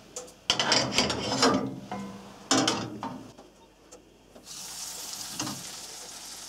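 Clattering of kitchen handling for about two and a half seconds, then, after a short quiet gap, a steady hiss of hot vegetable oil beginning to sizzle in a cast-iron frying pan.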